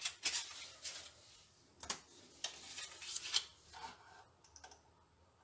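Sheets of pre-cut patterned card paper rustling and sliding as they are handled and laid down on a cutting mat, in a few short scrapes over the first three and a half seconds, then a couple of faint ticks.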